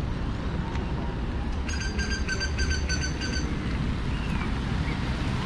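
Outdoor ambience with a steady low wind rumble on the microphone. About a second and a half in comes a quick run of short, high chirps, about five a second, lasting about two seconds.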